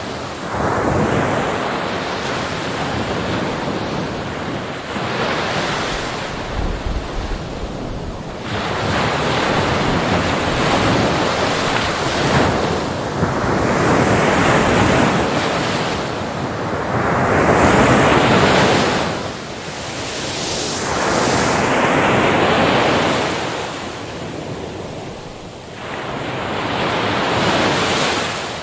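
Ocean surf: waves breaking on a beach one after another, the wash swelling and fading every few seconds.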